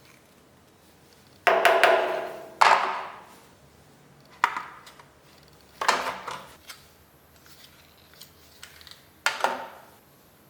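A series of five sharp knocks with short ringing, irregularly spaced, the first two the loudest; no machine is running between them.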